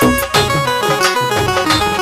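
Indian folk dance song playing: a plucked-string melody over a steady beat.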